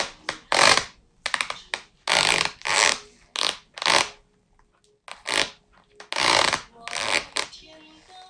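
A series of about a dozen short, loud scraping sounds, each lasting under half a second, with brief gaps between them.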